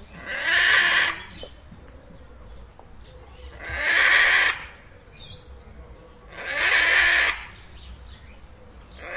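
Macaw squawking: loud, harsh calls about a second long, repeated every three seconds or so, three in full and a fourth starting near the end.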